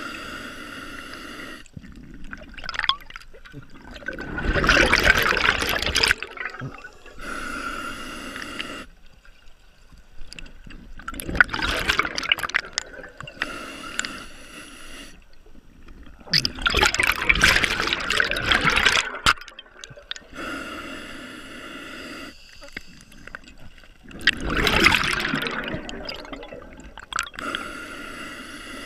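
Scuba diver breathing through a regulator underwater: four slow breaths, each a quieter, hissing inhale followed by a louder rush of bubbling exhaust.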